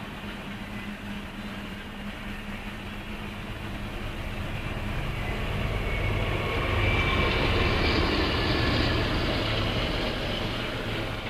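Freight train of tank cars rolling past, heard from inside a parked car; it swells louder from about halfway through, with a faint high whine, then eases near the end.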